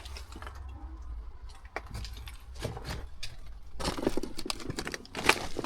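Footsteps crunching over rubble and litter, with scattered cracks and scrapes; the loudest crunches come about four seconds in and again near the end, over a low steady rumble.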